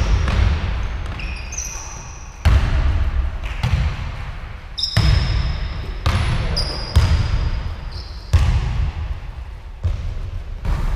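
Basketball bouncing on a wooden gym floor, irregular thuds about a second apart that ring on in the large hall, with short high sneaker squeaks in between.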